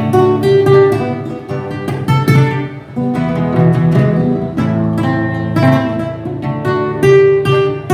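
Acoustic guitar playing the song's instrumental break, a quick run of picked notes mixed with strums.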